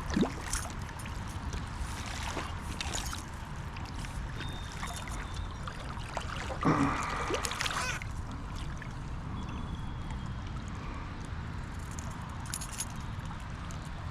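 Creek water running and gurgling steadily, with a few light knocks and a brief louder noise about seven seconds in.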